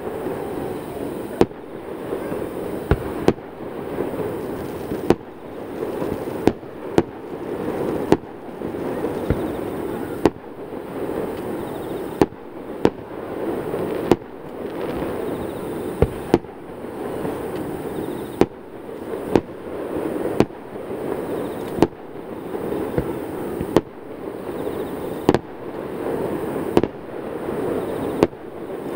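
Aerial firework shells bursting one after another, a sharp bang every second or two. Between the bangs a continuous rumble of booms echoes back off the surrounding mountains.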